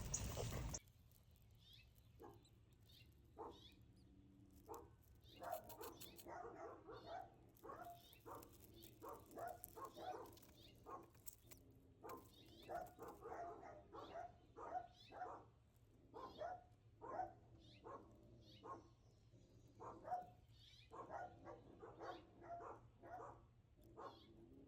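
Near silence, with many faint, short animal calls at irregular intervals.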